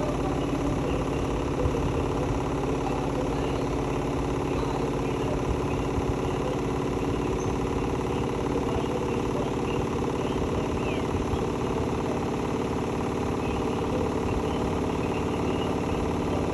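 Hotpoint-Ariston Aqualtis washing machine running, a steady motor hum with vibration.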